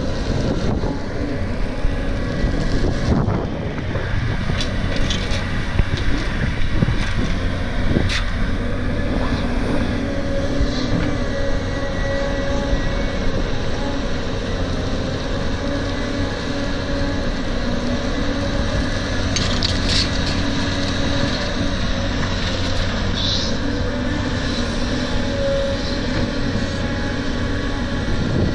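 Caterpillar 320 hydraulic excavator's diesel engine running steadily under digging load, with a few clanks and scrapes as its bucket works into laterite soil during the first ten seconds or so.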